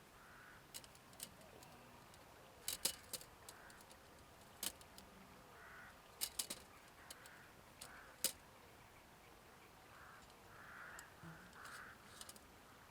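A few sharp clicks and light clinks scattered through, the loudest near the middle, with faint short calls in between and a cluster of them near the end.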